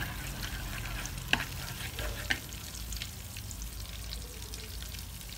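Melted butter sizzling and crackling in a wok while a wooden spatula stirs it, knocking sharply against the pan three times in the first few seconds, over a steady low hum.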